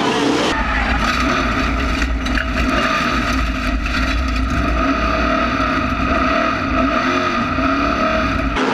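Onboard sound of an SK Modified race car's V8 engine running, heard from inside the cockpit as the car travels across the infield grass. The in-car sound cuts in about half a second in, replacing grandstand sound of the cars.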